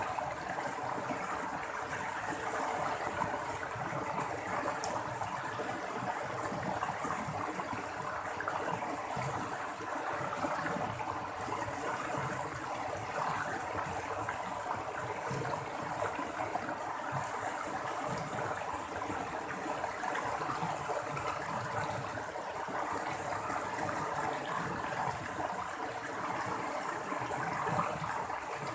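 Running water babbling and splashing steadily over rocks, like a small stream or trickling cascade.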